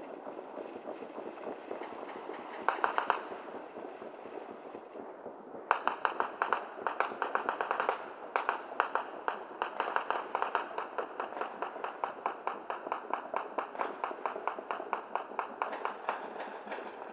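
Rapid strings of sharp distant pops from New Year's celebrations over a steady hiss. A short burst comes about three seconds in, then a long unbroken run of pops at roughly five a second starts about six seconds in and carries on to the end.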